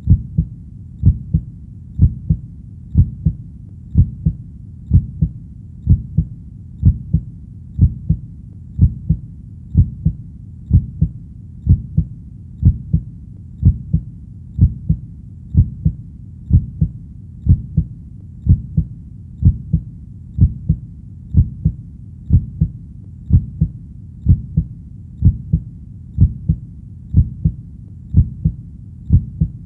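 A heartbeat beating steadily in a lub-dub rhythm, as low double thuds at about one beat a second.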